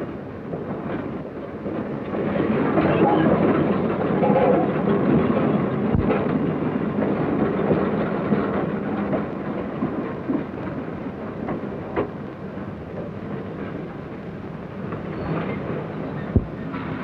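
Freight train running on the rails: a steady rumble that swells about two seconds in and then eases, with three sharp clicks from the wheels and track along the way. It is heard through an old film soundtrack with no high end.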